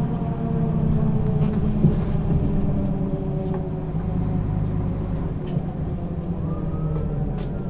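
Diesel engine of a Mercedes-Benz Citaro O 530 G articulated bus running steadily, heard from inside the passenger compartment as a low hum with several steady tones above it.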